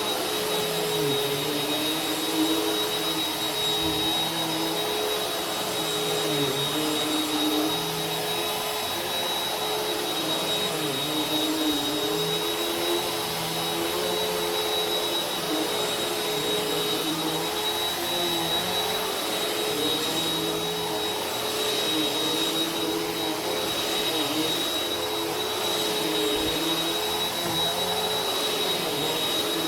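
Vacuum cleaner running steadily: a constant rush of air with a steady high motor whine and a lower hum that wavers slightly every few seconds.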